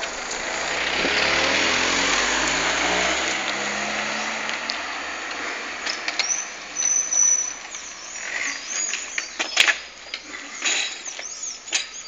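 A car passing by on the street, its engine and tyre noise swelling to a peak about two seconds in and fading over the next few seconds. In the second half there are scattered sharp knocks and clicks.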